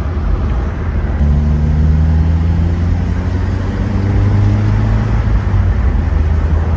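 Pickup truck driving, heard from inside the cab: steady engine and road rumble, with a pitched engine drone that comes in about a second in, rises slightly in pitch and fades out after a few seconds.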